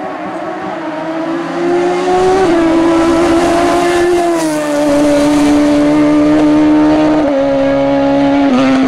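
Race car engine running at high revs on a hill climb course, growing louder about two seconds in, its note stepping down in pitch a few times.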